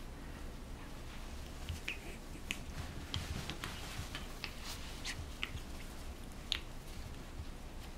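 Puppy mouthing and chewing on a person's fingers in play: scattered small, sharp clicks and squeaky ticks of teeth and mouth, about a dozen over the stretch, the strongest one near the end.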